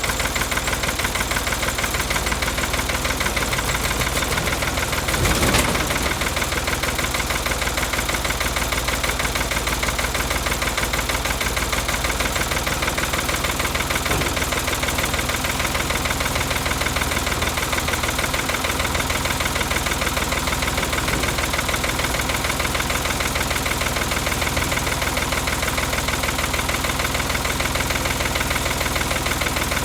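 Ford 4500 backhoe engine idling steadily after its first start following a winter of sitting, with a rapid, even beat. There is a brief louder surge about five seconds in.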